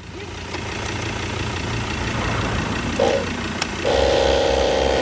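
ARB twin 12-volt air compressor switching on and running, a steady noise that builds over the first couple of seconds. A steady buzzing hum joins about four seconds in, after a brief blip a second earlier.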